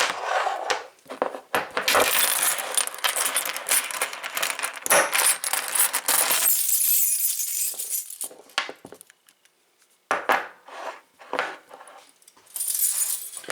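Master padlocks and keys clinking and rattling as they are handled and unlocked: a dense run of metal clicks for about the first six seconds, then only a few scattered clicks.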